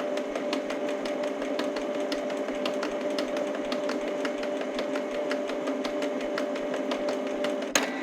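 Canon Pixma MP495 inkjet printer at work: a steady motor whir with a regular rapid ticking from its mechanism. Near the end a loud click, and the higher part of the whir stops.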